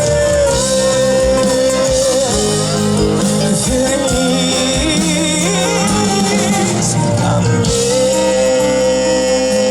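Acoustic rock band playing an instrumental passage: guitars under a long, held melody line whose pitch wavers in the middle.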